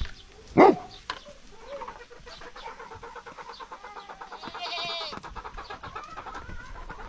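A dog barks once about half a second in, followed by a fainter run of rapid ticking over a thin wavering tone.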